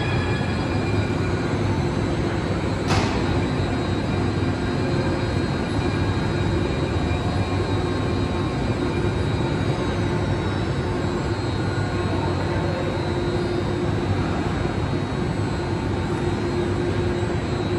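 Muni Metro Siemens S200 light rail car in an underground station: a steady hum and rumble from the train's motors and equipment, with the jet-like sound filling the tunnel. One sharp click comes about three seconds in, and a faint high whine slides down in pitch around ten seconds in.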